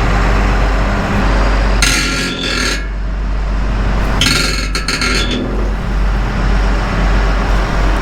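Heavy machinery engine running steadily under load, with two harsh metallic screeches of about a second each, a couple of seconds apart, as steel scrapes against steel.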